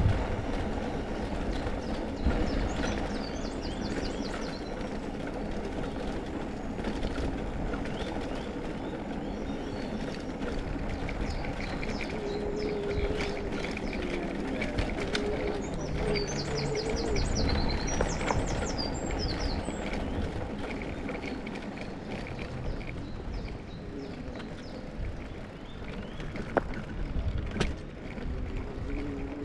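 Bicycle tyres rumbling and the bike frame rattling as it rolls over cobblestones. Short trills of birdsong come twice, a few seconds in and again just past the middle.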